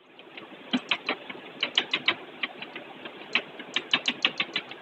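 Chalk tapping against a blackboard as dots are stippled on: sharp irregular taps, about five a second, over a faint steady hiss.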